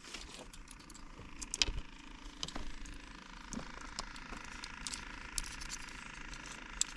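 Scattered light clicks, ticks and small rattles of fishing tackle and bait being handled, busiest about two seconds in, over a faint steady background noise.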